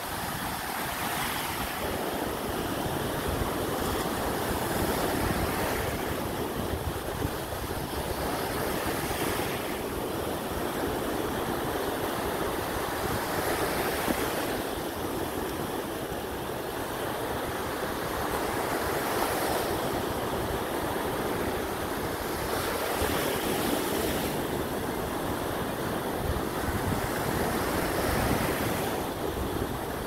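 Small ocean surf breaking and washing up the sand, a foamy rush that swells about every four to five seconds as each wave comes in. Wind buffets the microphone with a low rumble underneath.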